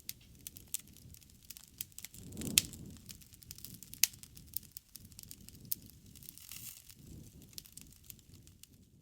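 Wood campfire crackling with scattered pops over a low rush of flame. Two sharp pops stand out, about two and a half seconds in and about four seconds in.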